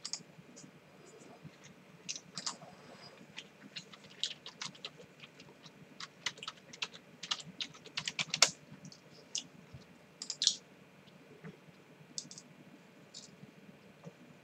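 Typing on a computer keyboard: irregular key clicks, quickest about six to eight seconds in, thinning out to a few scattered taps near the end.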